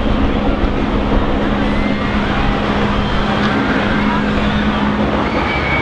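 Wind rumbling on the microphone over the murmur of a large outdoor crowd, with a steady low hum that stops near the end.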